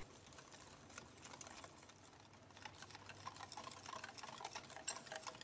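Wire whisk clicking and scraping against a glass bowl in faint, rapid strokes while flour and milk are whisked into a batter. The clicking gets busier about halfway through.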